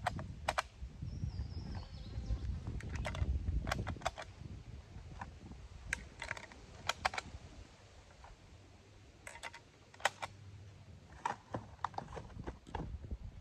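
Scattered sharp clicks and light taps at irregular intervals, with low wind rumble on the microphone during the first few seconds.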